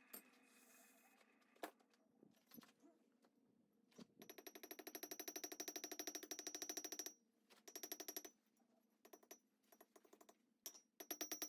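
Rapid, evenly spaced light hammer taps on hot steel, peening over the rivet of a pair of miniature forged pliers. They come in runs: a long run of about three seconds near the middle, then shorter bursts.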